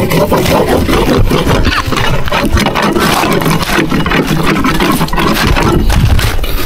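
Continuous rough scraping: a steel-wool pad on a stick scrubbing thick moss off a boat's hull in quick irregular strokes.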